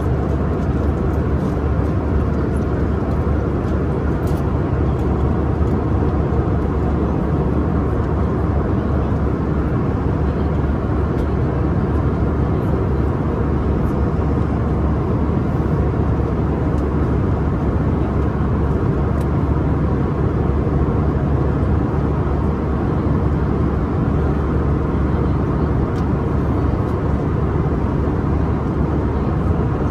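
Steady cabin noise inside an Airbus A319 airliner in flight: an even, unbroken drone of engines and airflow, mostly low in pitch.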